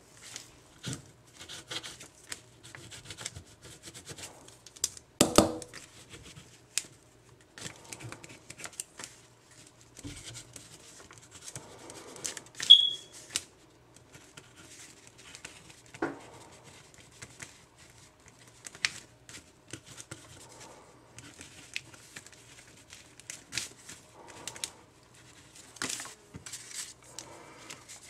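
Ballpoint-style pen writing on a sheet of paper, with paper rustling and small taps of handling. There is a louder bump about five seconds in and a brief high squeak near the middle.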